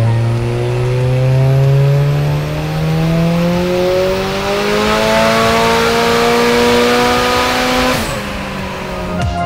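Turbocharged Toyota 4E-FTE four-cylinder, the rear engine of a twin-engined Starlet, on a full-throttle roller-dyno pull in rear-wheel drive. The engine note rises steadily through the revs for about eight seconds, then drops off abruptly.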